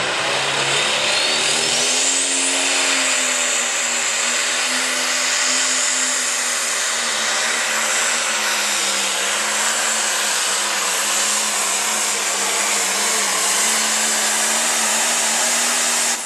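Light pro stock pulling tractor's turbocharged diesel engine running flat out under load while dragging the pulling sled, the pitch wavering slightly as it goes, with a high whine rising over the first few seconds.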